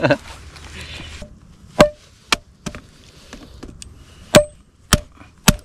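Hatchet chopping into a log to cut kindling shavings: about six sharp, irregularly spaced strikes starting a little under two seconds in, the loudest ones with a brief ring.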